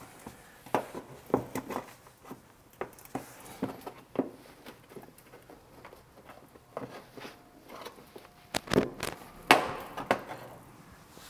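Irregular clicks, taps and knocks of a flat screwdriver prying plastic push clips out of a car's plastic wheel-arch liner, with the liner flexing and knocking as it is handled; the loudest knocks come about three quarters of the way through.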